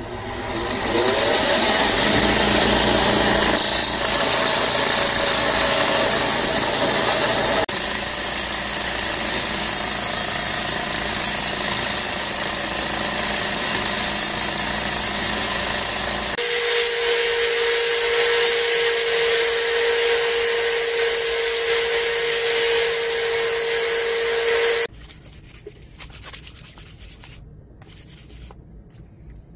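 Electric belt grinder and bench grinder sanding a knife's wooden handle, a loud steady grinding noise. Partway through, a steady whine joins it. About two-thirds of the way through the machine noise stops abruptly, giving way to much quieter hand sanding with fine sandpaper.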